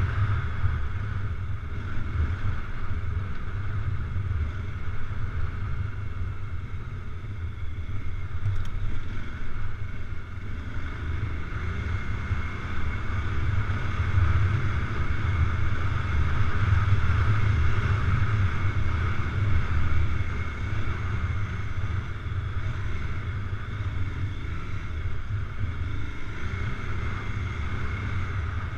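Adventure motorcycle engine running while riding, mixed with wind rumble on the microphone; it swells somewhat a little past the middle.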